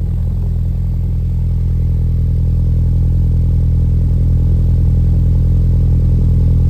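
2021 Ford Bronco engine idling steadily just after start-up, heard at the tailpipe of a newly fitted MBRP 3-inch stainless steel cat-back exhaust. The exhaust note is loud and even, with no revving.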